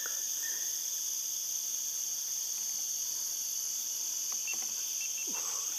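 A steady, high-pitched chorus of insects, unbroken throughout.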